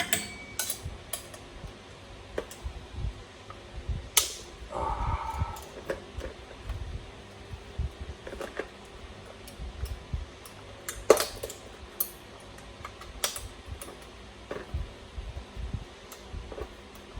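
Small metal tools and screws clicking and tapping as the exhaust is unbolted from a 1/5-scale gas RC truck, with a short squeak about five seconds in and the sharpest tap around eleven seconds.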